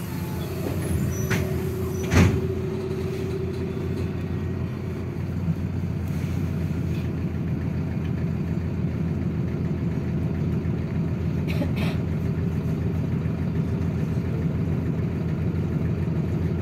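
MAZ city bus engine running steadily, heard from inside the passenger cabin, with a sharp knock about two seconds in and a fainter click later on.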